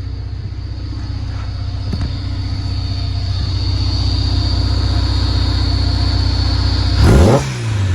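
Turbocharged K-series engine swapped into a 1990 Acura NSX idling steadily, then a quick throttle blip about seven seconds in: the revs rise sharply and fall back to idle.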